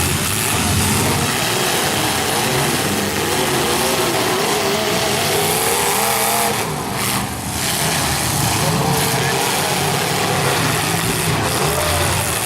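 Several demolition derby cars' engines running and revving together, with voices shouting over them.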